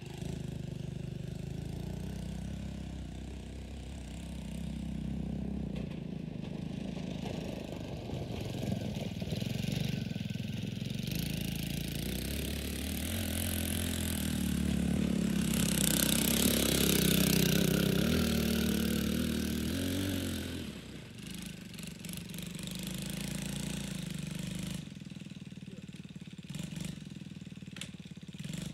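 Riding mower powered by a 109 cc single-cylinder dirt bike engine driving past: the engine grows louder as it approaches, is loudest a little past the middle, then fades as it moves away.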